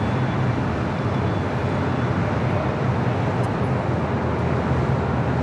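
Steady outdoor roar of jet-aircraft engines and road traffic around an airport, with a low hum underneath and no single distinct event.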